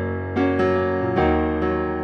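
Korg Kronos keyboard playing sustained chords in a piano sound, a new chord struck twice: G-flat major moving to E-flat minor, its relative minor, in a progression of chords by fourths.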